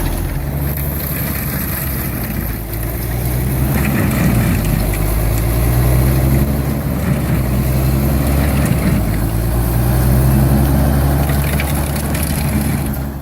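Excavator-mounted stump grinder at work: the heavy machine's engine drones steadily under load, with the grinding of the toothed disc in the stump, growing a little louder a few seconds in.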